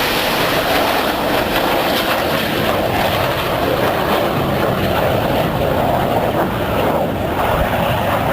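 Jet engine noise from Red Arrows BAE Hawk jets with Rolls-Royce Turbomeca Adour engines flying past in formation, steady and loud. The higher part of the sound fades from about halfway through as the jets move away.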